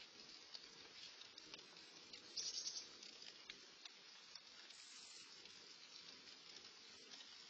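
Light rain pattering steadily, with many small drops ticking through it and a brief louder hiss about two and a half seconds in.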